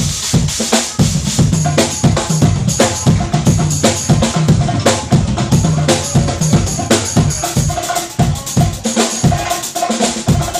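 Drums and percussion playing a fast, dense solo: rapid strikes over ringing low drum tones, with sharper wood-block and snare-like hits.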